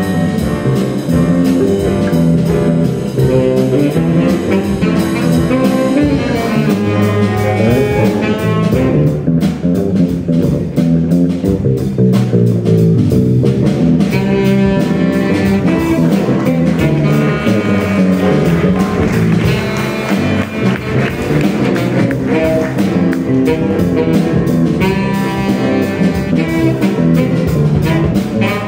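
Small jazz combo playing a swing tune: saxophone carrying the melody over electric bass guitar and keyboard.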